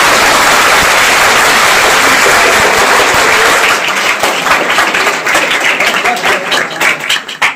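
Audience applauding: a dense wash of clapping that breaks up into separate, scattered claps about halfway through and thins out near the end.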